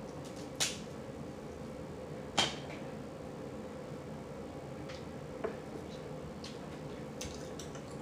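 Crab shell cracking and snapping as it is broken apart by hand: a few sharp cracks, the loudest two about half a second and two and a half seconds in, then smaller clicks. A faint steady hum is under it.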